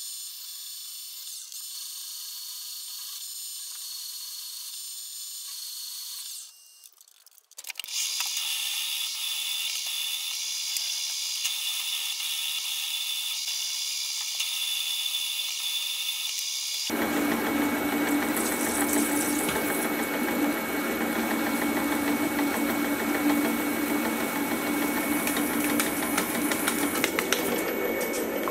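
Milling machine spindle running while a drill and a counterbore cut into steel plate. The sound changes suddenly at about seven seconds and again at about seventeen seconds. The last stretch is the loudest and rougher, with a steady hum under the cutting.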